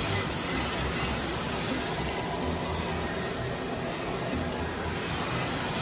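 Storm Vulcan 15AW crankshaft grinder running steadily, an even machine noise with a low hum, as the steady rest is tightened against the crankshaft journal.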